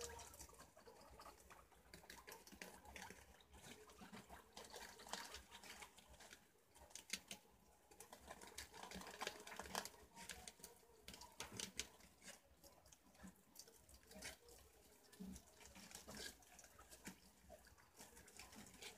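Faint, irregular clicking and rustling as a group of preás (wild cavies) chew and shuffle through leaves and banana peels.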